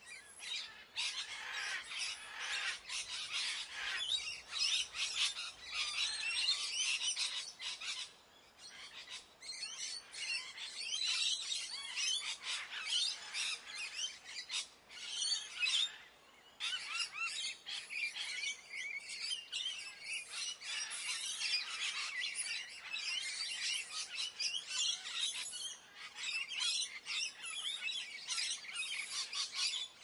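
A dense chorus of tropical jungle birds, many short chirps and calls overlapping. The chorus dips briefly about 8 and 16 seconds in.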